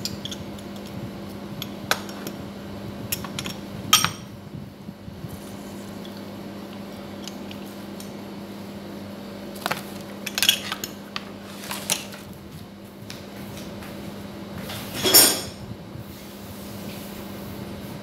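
Scattered clinks and clatters of a metal hand-press lemon squeezer and a bowl being handled and set down, the loudest clatter about fifteen seconds in. A steady low hum runs underneath.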